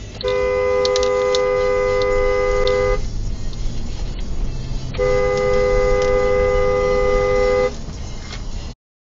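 Car horn held down in two long blasts of nearly three seconds each, about two seconds apart, over steady road noise.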